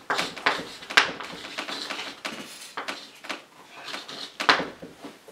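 Chalk writing on a chalkboard: a run of sharp taps and short scratchy strokes as a word is written out, the loudest taps about a second in and near the end.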